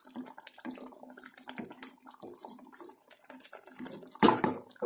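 Chicken curry gravy coming to the boil in a pan, bubbling with many small quick pops. One loud knock about four seconds in.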